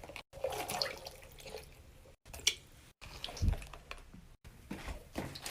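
Water splashing and dripping in a filled sink as stress balls are put into it, in short, broken snatches.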